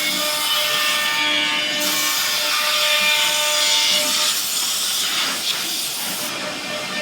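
A CNC machine running: a steady motor whine of several held tones under a loud, continuous hissing noise like cutting or rushing air.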